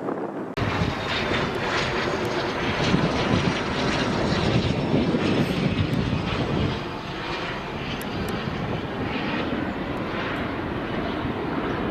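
Jet aircraft engines running loud, a steady rushing roar that comes in suddenly about half a second in, peaks over the next several seconds and eases slightly after about seven seconds.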